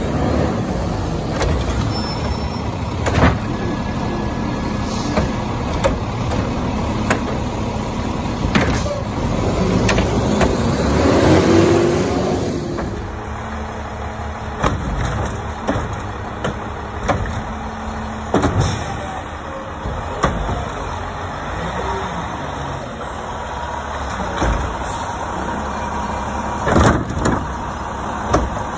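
Front-loading garbage trucks working: the diesel engine runs steadily while wheeled carts and a steel dumpster are lifted and tipped, with sharp metal bangs every few seconds and a whine that swells near the middle.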